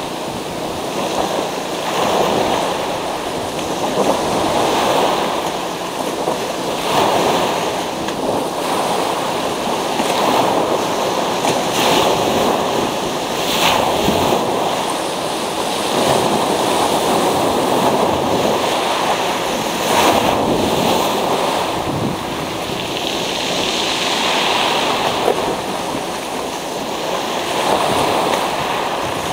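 Sea waves breaking and washing up a pebble beach, a continuous surf that swells and eases every few seconds as each wave comes in and draws back.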